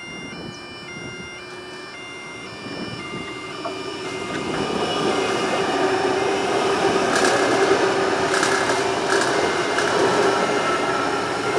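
Adelaide Metro 4000 class electric train approaching and passing close by. It grows louder from about three seconds in, with a steady hum and a few sharp clatters of wheels over the rails as the carriages go by.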